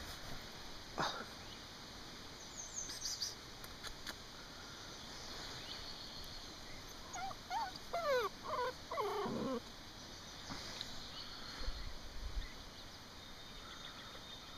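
Puppy whimpering: a cluster of short, high, wavering whines about halfway through.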